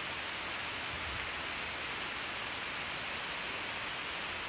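Steady, even background hiss with no other sound.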